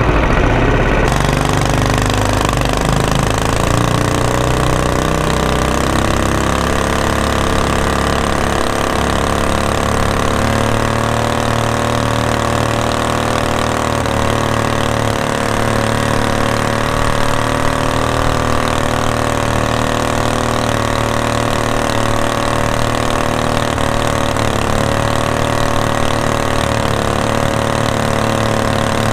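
Predator 212 single-cylinder four-stroke engine driving a mud motor, revving up from idle over the first few seconds as the throttle opens, then running steadily at high speed.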